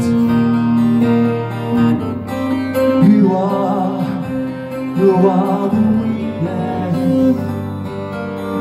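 Acoustic guitar strummed live, holding a steady chord pattern through an instrumental passage between sung lines.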